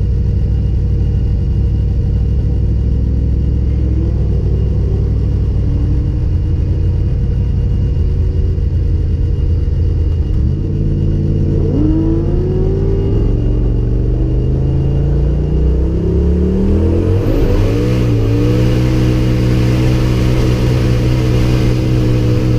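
Turbocharged Toyota 1UZ quad-cam V8 in a KE20 Corolla, heard from inside the cabin. It runs steadily at low revs for about ten seconds, then climbs in pitch as the car accelerates, and holds a steady higher note over the last few seconds with a rushing hiss on top.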